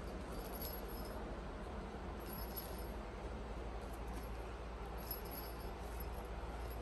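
A feathered toy mouse batted about by a kitten, giving a few faint, brief bell-like tinkles, about three times, over a steady low hum.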